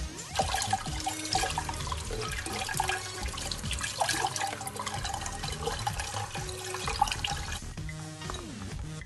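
Kitchen tap running into a stainless steel sink while raw pork pieces are rinsed by hand under the stream, with the water splashing; the water stops near the end. Background music plays underneath.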